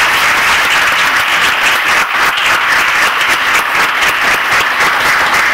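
Audience applauding, steady clapping from many hands that begins to fade near the end.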